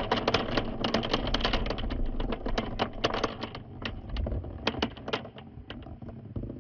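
Glass marbles and plastic balls rolling in a large plastic funnel on a marble run and clacking into the pile at its central hole: a dense clatter of clicks over a rolling rumble, thinning to scattered clicks after about three and a half seconds as the bowl empties.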